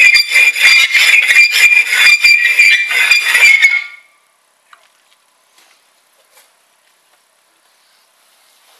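A hard object scraped rapidly back and forth over smooth Knauf Diamant gypsum plaster in a scratch test of its hardness: a grating scrape with a high squeal in quick strokes, stopping suddenly about four seconds in. After it, only a few faint clicks.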